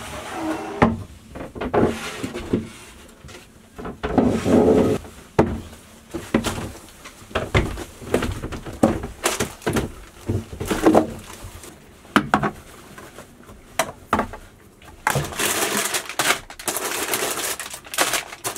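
Irregular knocks, thuds and clatter of groceries being carried into a small wooden boat cabin and unpacked: bags set down and cans and packets placed on the table. Plastic shopping bags rustle through the last few seconds.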